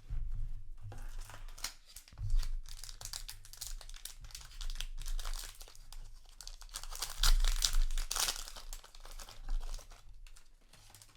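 A trading card booster pack wrapper being crinkled and torn open by hand, a busy crackling with many sharp ticks that grows loudest past the middle.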